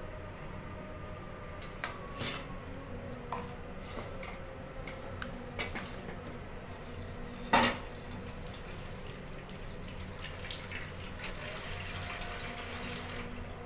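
Fried chicken being torn apart by hand over a ceramic bowl: soft handling sounds with scattered small clicks, and one sharp knock a little past halfway.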